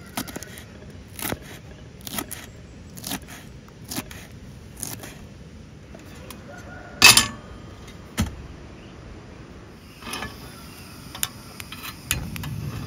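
A series of short sharp clicks or knocks, about one a second, with a louder ringing one about seven seconds in and a few more near the end.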